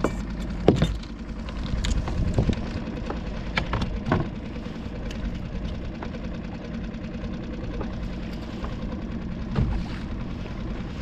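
Boat's outboard motor running steadily at trolling speed, with a few sharp knocks and clicks over it.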